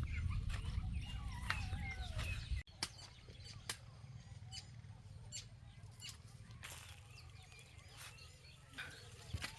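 Outdoor sounds: a low rumble with short birdlike chirps over it, then a sudden cut about two and a half seconds in to a quieter stretch of scattered light clicks and taps.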